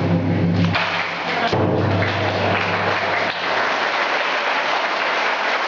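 Deep drum booms echoing in a large hall, with two more strokes about a second and a second and a half in and the boom dying away by about three seconds. Audience applause starts about a second in and carries on.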